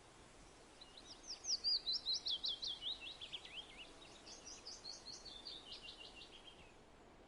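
A songbird singing two fast phrases of sharp, down-slurred whistled notes, the first louder and dropping in pitch as it goes, the second softer, starting about four seconds in.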